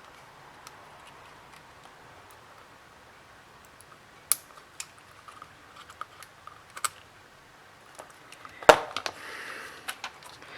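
Scattered light clicks and taps of the tablet and small parts being handled on a repair bench, with one sharper click near the end.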